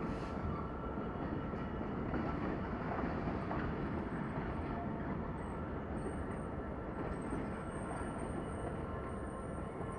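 Freight train of enclosed car-carrier wagons rolling slowly past, a steady rumble of wheels on rail. A faint thin high tone comes in about six seconds in.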